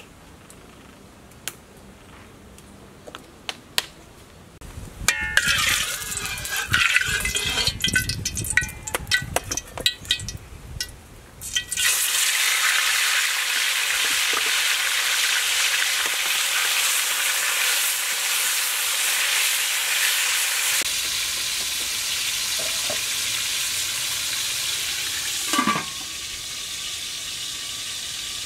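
Raw chicken legs frying in oil in a wok: irregular spitting and crackling, then a steady loud sizzle. Near the end a brief metal clank as the wok is covered with its lid, and the sizzle goes on a little quieter.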